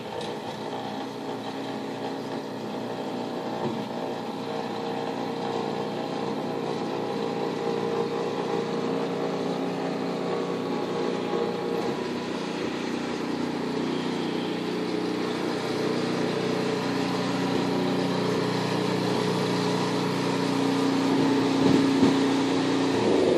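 An engine running steadily with a constant hum, getting gradually louder and loudest near the end.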